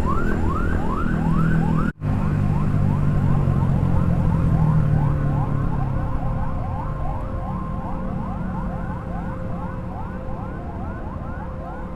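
Emergency-vehicle siren in a fast yelp, rising sweeps repeating about three times a second over the low rumble of a motorcycle engine, growing fainter in the second half. The sound cuts out for an instant about two seconds in.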